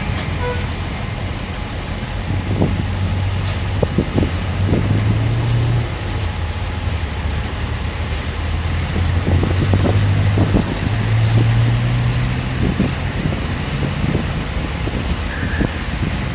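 Diesel locomotive engine running at the head of a standing passenger train: a low steady drone that rises a little twice. A few short clunks come through over it.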